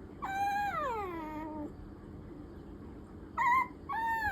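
Maltipom (Maltese–Pomeranian) puppy whining for attention: a long whine that slides down in pitch, then a short high whimper and another whine that falls away near the end.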